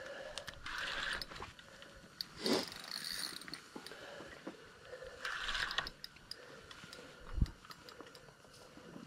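Spinning reel clicking and ratcheting in short bursts as a big lake trout is played on the line. A dull thump comes about seven seconds in.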